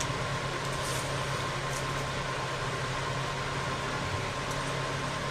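Steady blowing hum of a fan or blower motor, even throughout, with a few faint light ticks in the first two seconds.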